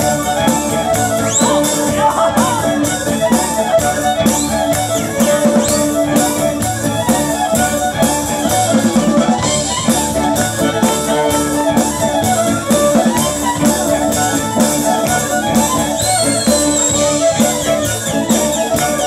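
Live band with accordion, electric guitar, bass guitar, keyboard and drum kit playing an instrumental passage of highlander-style folk music with a steady beat.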